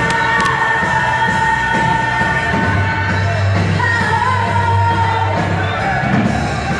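Live church worship music: a band playing while voices sing long held notes.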